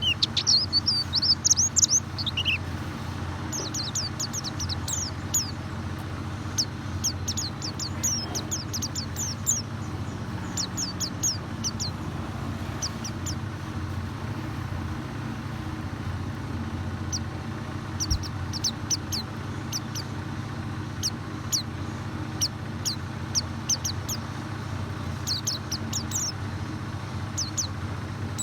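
White-eye (pleci) chirping: quick runs of short, high, downward-sliding notes in bursts, over a steady low hum. This is a lure call (pancingan) meant to set a reluctant pleci singing.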